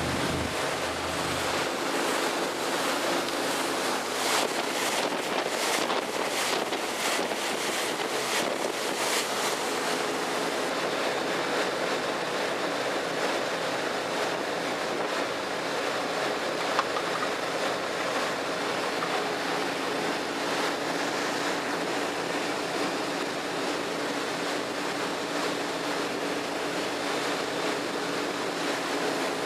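A fishing boat under way on open water: wind and water rush steadily, with a low engine hum underneath. A few seconds in, gusts buffet the microphone.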